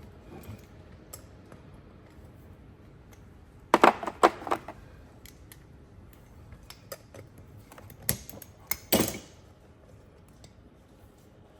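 Small metal carburetor parts and hand tools being handled on a workbench: a cluster of sharp clinks and knocks about four seconds in, a few light ticks, and another cluster about eight seconds in.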